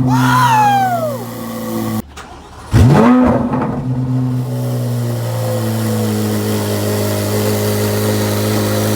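Chevrolet Corvette Z06 flat-plane-crank V8 catching from a start, its revs flaring up and falling back to idle. After a sudden cut about two seconds in, another start: a sharp rev flare that settles into a steady idle.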